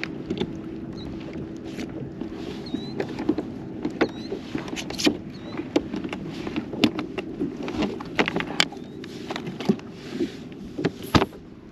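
Small fishing boat under way: a steady motor hum, with frequent irregular knocks and clacks from the hull and gear, the sharpest one near the end.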